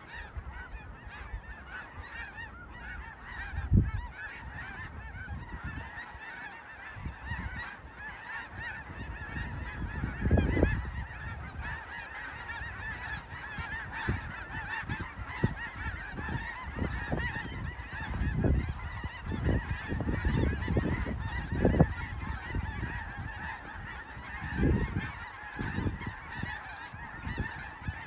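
Snow geese calling in a dense, continuous chorus of overlapping high honks, with occasional low thumps a few times through it.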